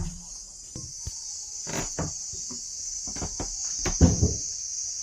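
Steady high-pitched chirring of insects, with a few irregular knocks and thumps over it, the loudest about four seconds in.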